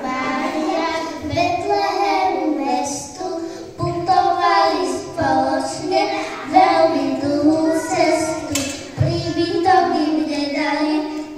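A young child singing a song into a microphone, with held notes that glide from one pitch to the next.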